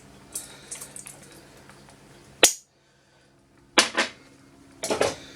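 Sharp clicks and clatter of kitchen utensils handled against a pot, such as a measuring spoon tapping on a container. A sharp click about halfway through is followed by about a second of dead silence, then two knocks and a run of clatter near the end.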